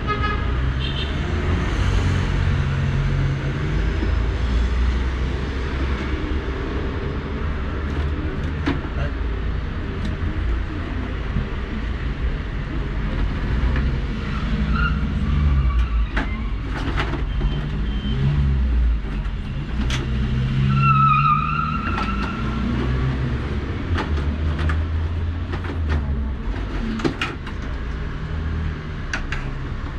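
Steady low rumble of road traffic, swelling now and then, with scattered light clicks and knocks from hands working at a roller-shutter box, and a brief high squeal about two-thirds of the way through.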